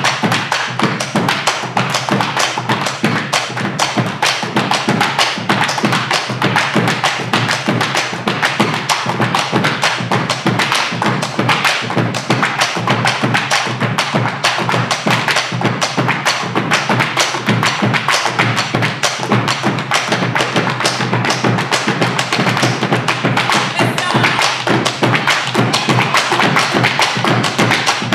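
Malambo percussion: rapid stamping of shoes on a wooden stage floor and the whirled boleadoras striking it, over bombo legüero drums. It is a dense, unbroken stream of taps and thuds, many to the second.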